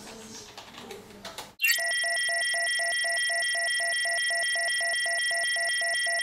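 Faint computer-keyboard typing, then about a second and a half in a synthetic electronic computer sound effect starts suddenly: steady high tones under a rapid beeping pulse of about five beeps a second.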